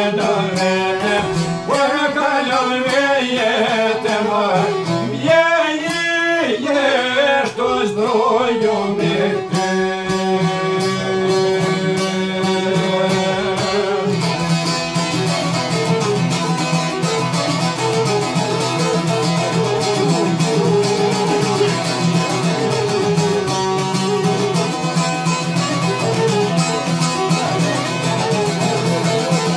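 Albanian folk song: a man sings to the accompaniment of a long-necked plucked lute and a violin. About fourteen seconds in the singing stops and the lute and violin play on alone.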